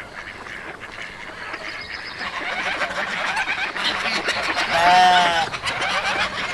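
Farmyard morning ambience: many small birds chirping, with the chatter building up, and one loud drawn-out animal call about five seconds in.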